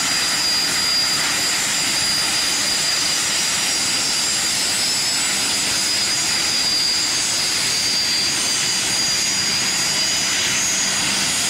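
Dassault-Dornier Alpha Jets' twin Larzac turbofans at takeoff power as the jets roll and lift off: a steady, loud jet roar with a high whine that drifts slightly lower.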